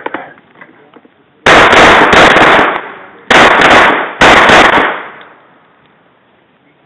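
Pistol shots fired in quick succession in three close groups about one and a half to five seconds in, loud enough to overload the recording.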